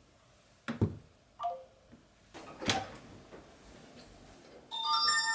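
A few sharp clicks and knocks, a short falling three-note electronic chime about one and a half seconds in, then a held chord of several steady electronic tones starting near the end.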